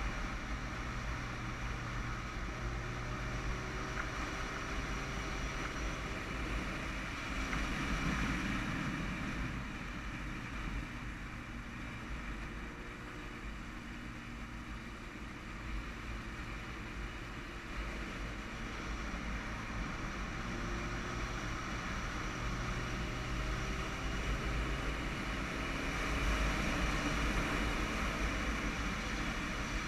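Motorcycle riding at speed: wind rushing over the bike-mounted microphone, with the engine droning underneath and its pitch drifting up and down now and then.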